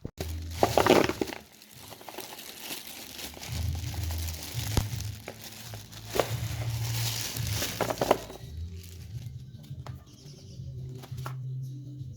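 Plastic produce bag crinkling and rustling in several bursts, loudest about a second in, over background music with a low bass line.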